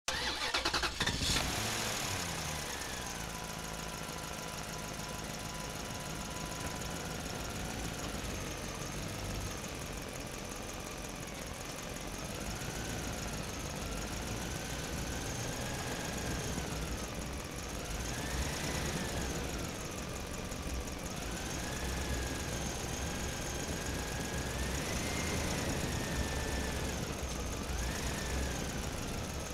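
Truck engine running as the truck drives through a parking structure. There is a loud surge at the start with the engine pitch falling away, then the engine runs steadily, its pitch rising and falling several times with the throttle.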